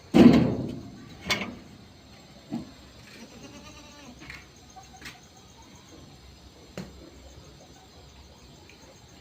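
Barbari goats bleating: one loud bleat right at the start, a second shorter one about a second later, then a few fainter calls.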